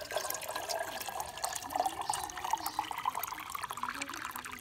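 Water pouring in a steady stream from a hose into a metal pot, splashing as the pot fills.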